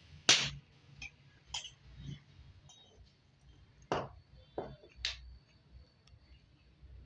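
Irregular sharp clinks and knocks, about seven in all, the first the loudest, as hard objects are set down or tapped together.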